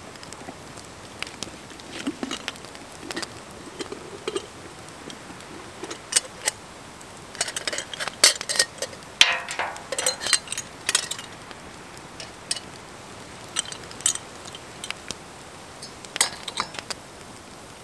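Metal clinking and rattling as a small black pot is handled and hung by its handle on an iron pot hanger over a campfire. The clinks come in a busy cluster in the middle, with a short scrape among them.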